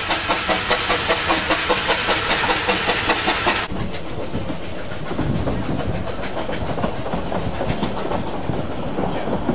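Narrow-gauge steam train: for the first few seconds, a quick, regular beat over hiss, about five beats a second, from the running steam locomotive. Then, from about four seconds in, the lower rumble and clatter of a carriage rolling over the track.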